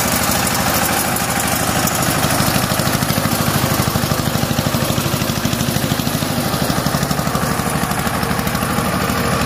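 Diesel tractor engine running steadily with a fast, even pulse.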